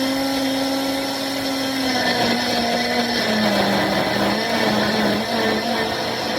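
Countertop blender motor running at speed, blending chopped celery stalks with about a cup of water into juice. Its steady whine begins to waver and dip in pitch about two seconds in.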